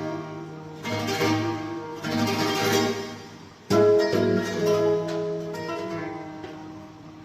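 Flamenco guitar playing a seguiriya between sung verses: three strummed chords, each left to ring out and fade.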